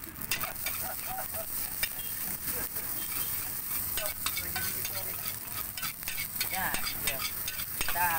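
Nasi goreng being stir-fried in a steel wok: a metal spatula scrapes and clacks against the pan many times in quick, irregular strokes, over a steady sizzle of rice frying.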